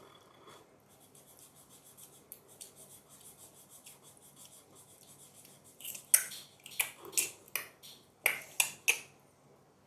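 Black sketch pen scribbling on paper, colouring in eyeballs: faint, quick scratchy strokes, then louder, sharper strokes from about six seconds in.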